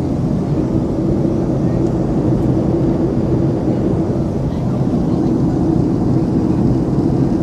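Steady cabin noise of a Boeing 757-232 climbing out, its Pratt & Whitney PW2037 turbofans at climb thrust, heard from a window seat behind the wing. An even low rush with two steady low hums running through it.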